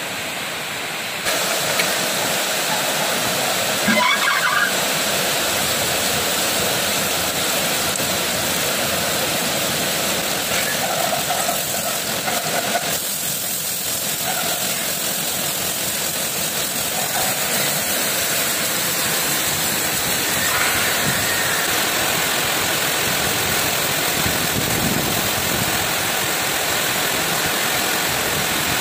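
Grinding wheel running against an air breaker hammer piston as it turns in the chuck, with coolant pouring and spraying: a steady hiss of grinding and flowing coolant that gets louder about a second in.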